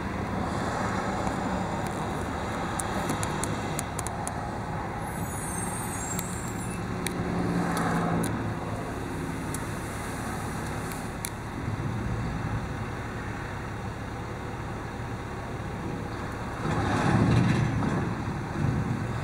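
International 7400 refuse truck's diesel engine running steadily at the curb. It swells louder about eight seconds in and again near the end as the body's cart lift raises a cart to the hopper, with scattered light clanks early on.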